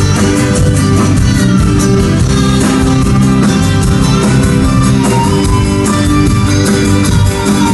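Live band playing country rock, guitars to the fore over a steady beat.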